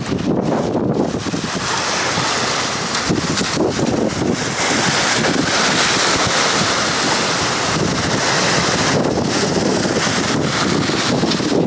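Wind buffeting the microphone over the wash of sea surf.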